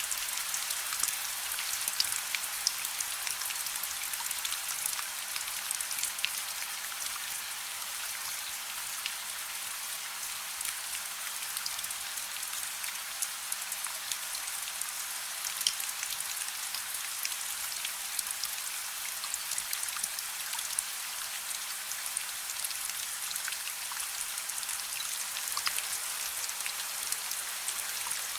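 Steady rain with a crackling fire: an even hiss of rainfall with scattered sharp pops and ticks throughout.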